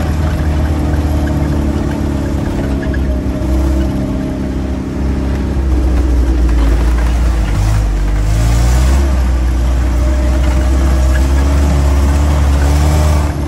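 Land Rover Series 3's 2.25-litre four-cylinder petrol engine pulling the vehicle along a rough track, heard from inside the cab. It eases off about four seconds in, then picks up and runs louder from about six seconds in, its pitch rising around eight seconds in.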